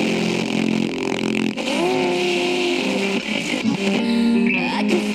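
Music playing from a Sony WM-F18 Walkman's radio. About a second and a half in, the music changes abruptly to a different passage.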